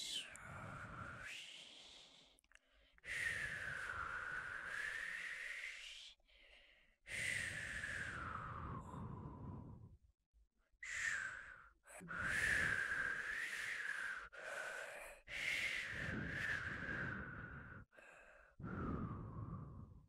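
A person whistling a series of long, breathy notes, about six of them with short gaps between, each sliding down in pitch and sometimes back up.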